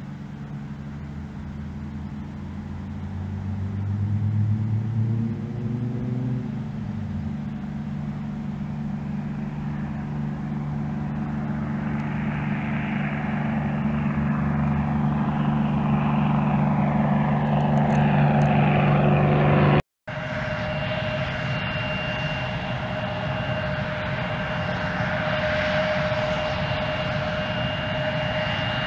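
A single-engine propeller plane at full power on its takeoff run and climb-out, growing louder as it comes toward the listener. About two-thirds of the way through, an abrupt cut to the steady whine of an Embraer 170's turbofan engines as it taxis.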